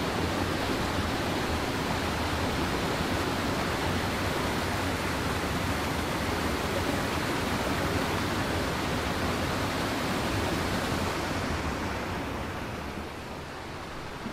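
Mountain stream cascading over boulders in small waterfalls: a steady rushing of water that fades a little near the end.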